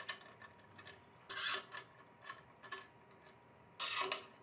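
Stainless steel turnbuckle lag tensioners being screwed by hand into threaded lag receivers in a wooden post: a series of short scraping rubs of metal threads and fittings, the longest and loudest near the end.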